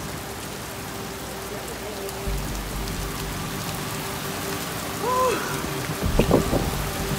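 Heavy rain pouring down and hissing steadily on the pavement. About five seconds in there is a brief pitched sound that rises and falls, and about a second later a few loud low thumps.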